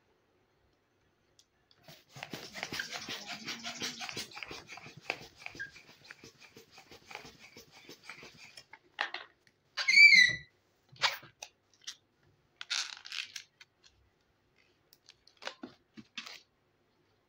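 A long latex modelling balloon being inflated with a hand pump, its rubber crackling and rustling steadily for about six seconds. About ten seconds in comes a loud, wavering rubber squeak, then a few light handling clicks and scrapes as the balloon is handled.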